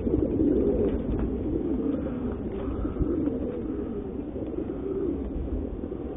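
Many racing pigeons cooing together in their crates, a dense, continuous warble over a low steady rumble.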